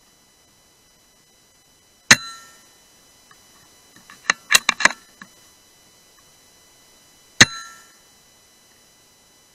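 Two shots from a .177 BSA R-10 Mk2 pre-charged air rifle, about five seconds apart, each a sharp crack with a short ringing tail. Between them comes a quick run of metallic clicks.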